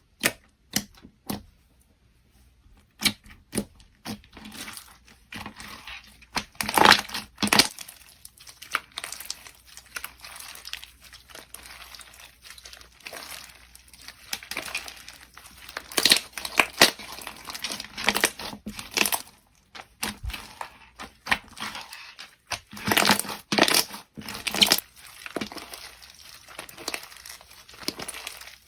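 White granular slime mixed with plastic mounting pads being squeezed and pressed, making irregular crunching and crackling, with louder clusters of crackles several times.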